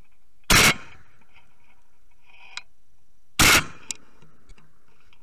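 Two loud shotgun shots, about three seconds apart.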